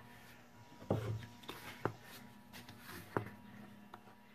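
Faint handling sounds of one-handed bar clamps being fitted to the edge of a wooden cradle board: a soft knock about a second in, then a couple of sharp single clicks.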